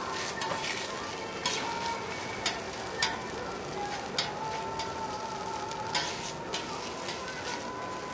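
Ham slice and egg-and-cabbage patty sizzling steadily on a flat-top griddle, with a handful of sharp clicks of metal tongs tapping the griddle as the ham is picked up and moved.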